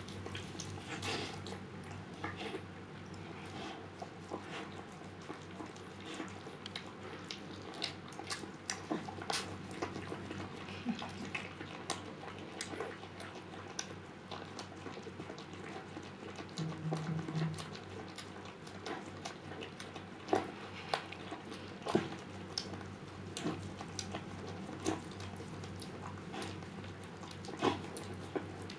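Siberian husky mother licking a newborn puppy clean just after its birth: irregular wet licking smacks, a few of them sharper than the rest.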